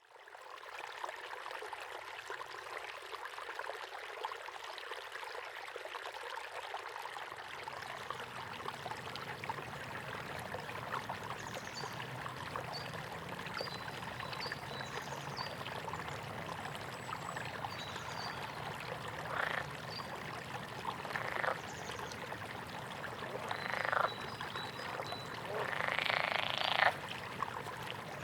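Steady rain hiss in a jungle soundscape, with short high bird chirps scattered through it. Frogs croak in several loud bouts in the second half, the longest near the end.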